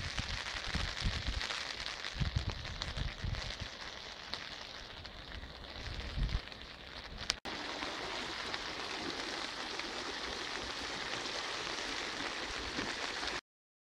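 Steady hiss of rain and rushing muddy floodwater, with low buffeting on the microphone during the first half. The sound changes at an abrupt cut about halfway through and stops dead just before the end.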